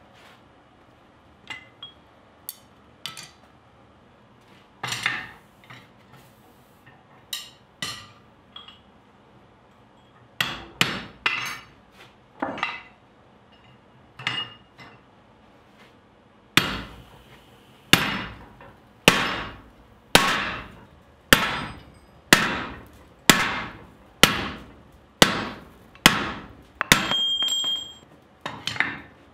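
Hand hammer striking a handled hot chisel cutting into red-hot steel on a cast swage block: steady ringing metal blows about one a second through the second half, after a few scattered clinks and knocks of tools on iron. Near the end a brief high ringing tone sounds from the struck steel.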